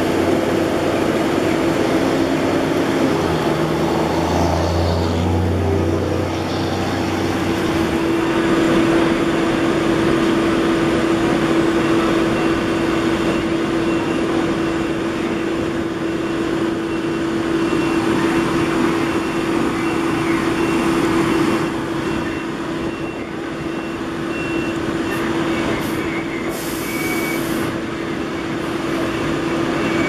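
Fire tanker trucks running, with a steady hum throughout, while water gushes out of a tanker's dump chute into a portable drop tank with a heavy rushing noise. A deeper engine note drops out about eight seconds in.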